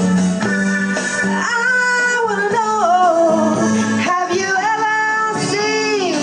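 A band playing live in rehearsal: guitar and bass hold steady chords, and a woman's lead vocal comes in about a second and a half in, singing the melody.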